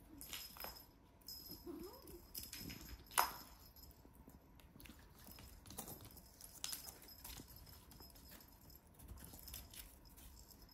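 Kitten playing on a corrugated cardboard scratcher house: scattered light taps and scrabbles of paws and claws on the cardboard, with one sharper knock about three seconds in.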